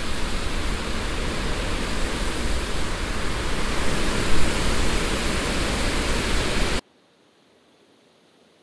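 Loud, dense wall of static-like noise with a deep rumble underneath, held steady and then cutting off abruptly about seven seconds in: a noise-drone passage of the soundtrack.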